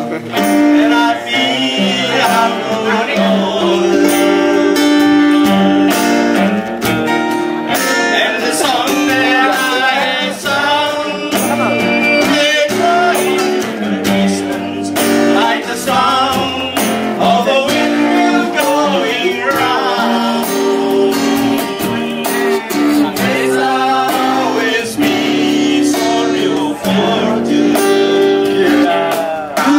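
A male voice singing through a microphone and loudspeakers, with live guitar accompaniment.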